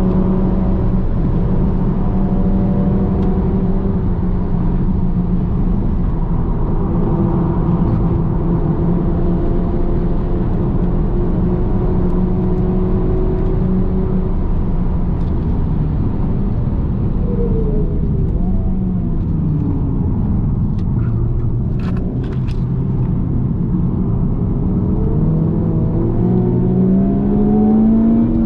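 The 2023 Honda Civic Type R (FL5)'s turbocharged 2.0-litre four-cylinder engine, heard inside the cabin at speed. It holds a steady high note at first, then drops in pitch as the car slows. A few light clicks follow while the engine runs low, and the note rises again as the car accelerates near the end.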